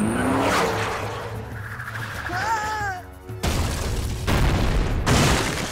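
Cartoon action score with sound effects: a whoosh in the first second, then loud booming explosions about three and a half seconds in and again near the end.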